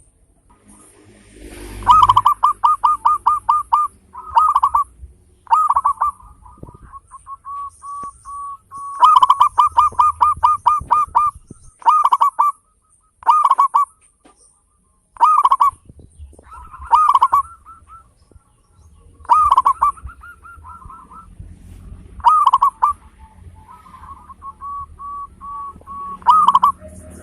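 Zebra dove singing: fast runs of short, clipped cooing notes, about eight a second, mixed with single and paired notes and short pauses between phrases.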